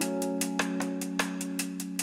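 Background music: a held chord over a quick, steady ticking beat.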